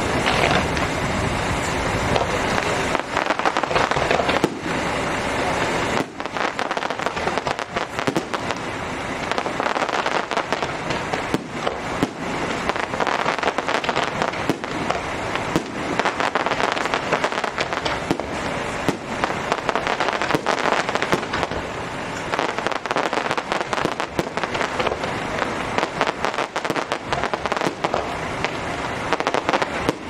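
Aerial fireworks display: a dense, continuous run of bangs from bursting shells, with a heavier low rumble under them for about the first six seconds.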